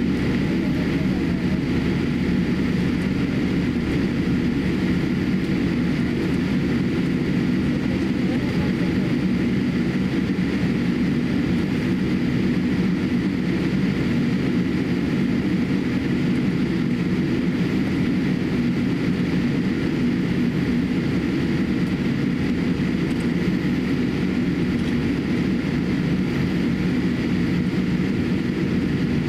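Inside the cabin of a Boeing 787-8 taxiing: its GE GEnx engines running at taxi power, heard as a steady low hum and rushing noise with a faint high whine, unchanging throughout.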